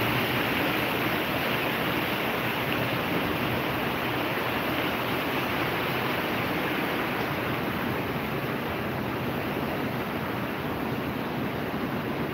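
Heavy thunderstorm rain falling, a steady even hiss.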